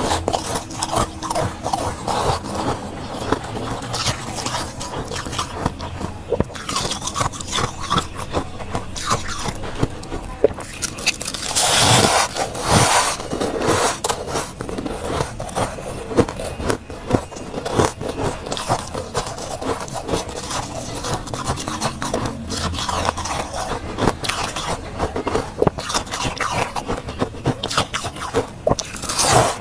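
Fingers scraping and crumbling powdery frost packed in a mold, a dense run of crackling, crunchy scrapes. It gets louder for a couple of seconds about twelve seconds in.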